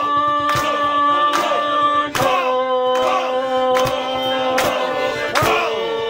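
Folk-punk band playing an instrumental passage: a fiddle holds long notes that change about every two seconds, over steadily strummed acoustic guitars.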